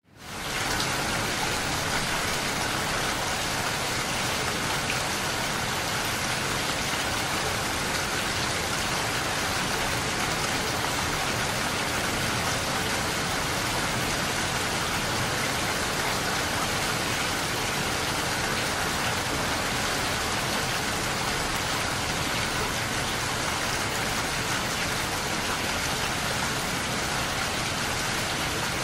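Rain falling steadily, an even, unbroken patter of drops that fades in at the very start.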